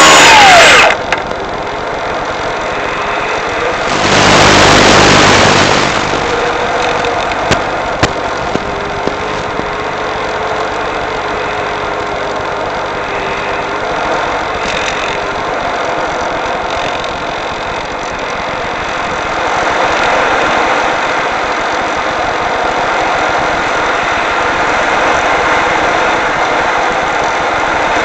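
Onboard audio from an electric RC glider in flight: a steady hum of several constant tones over a rushing noise. A louder burst of noise comes about four seconds in and lasts about two seconds, and a few sharp clicks follow.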